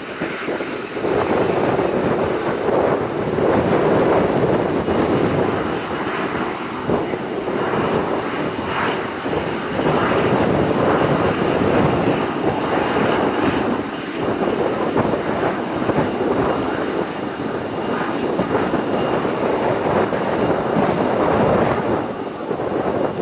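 Boeing 777-300ER's GE90 jet engines roaring during the landing rollout, a loud, steady rumble with a faint high whine.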